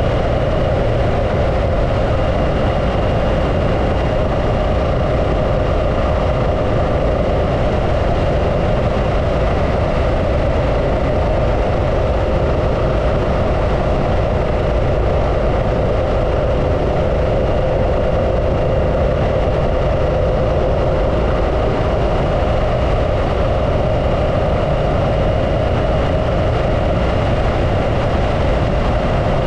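Harley-Davidson Pan America's Revolution Max 1250 V-twin running at a steady speed while the bike is ridden, with a constant low rumble and no change in revs.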